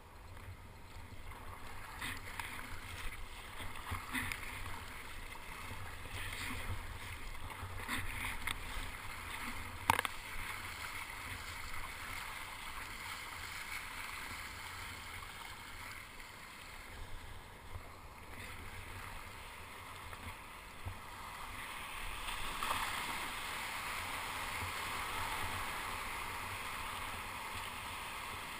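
Water splashing and sloshing around a sit-on-top kayak, with paddle strokes about every two seconds in the first third. From about three-quarters through, a louder, steady rush of breaking surf as the kayak runs into whitewater.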